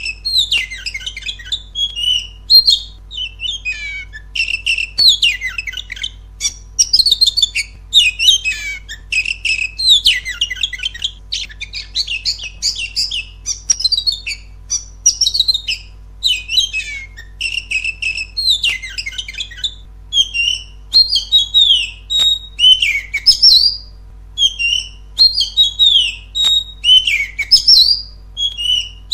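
Oriental magpie-robin singing loudly: a continuous run of rapid, varied whistled phrases and chirps, with short gaps between phrases.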